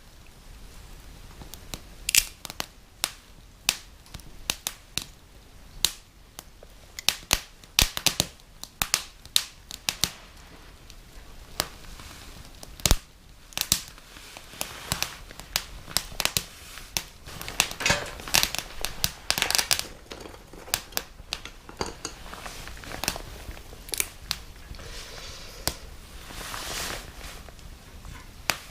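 Small fire of disposable wooden chopsticks crackling, with sharp irregular pops and snaps throughout and a denser run of crackling a little past the middle.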